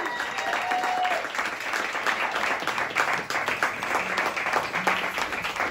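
Small audience applauding, the dense clapping building in as the last ringing notes of the song fade out in the first second.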